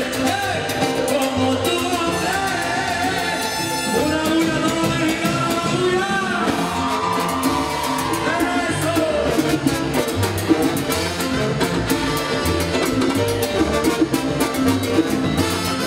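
Live salsa band playing, with trumpets and trombones over congas and timbales, and a singer's voice over the band.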